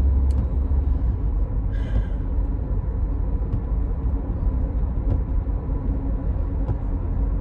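Steady low rumble of a car heard from inside the cabin, with a brief soft hiss about two seconds in.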